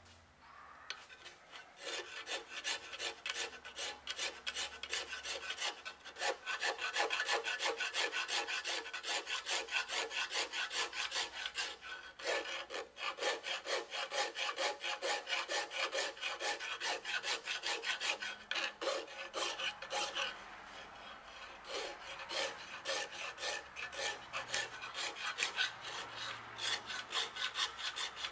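Coarse half-round hand file rasping back and forth over the parting line of a flywheel casting, a quick, even run of strokes with a couple of brief pauses. This is the filing that flattens the casting ridge.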